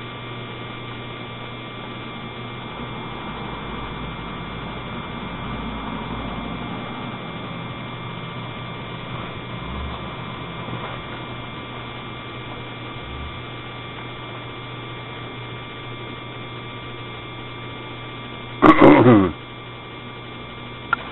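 Steady electrical hum made of several constant tones, over a faint hiss. About nineteen seconds in, a single loud, brief sound falls sharply in pitch over about half a second.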